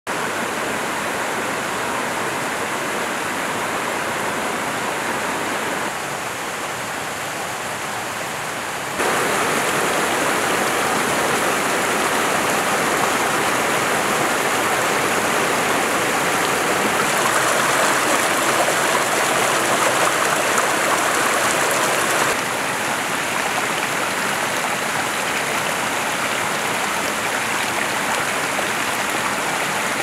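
Rushing water of a rocky mountain stream and small waterfall, a steady wash. It grows louder about nine seconds in and drops back a little after twenty seconds.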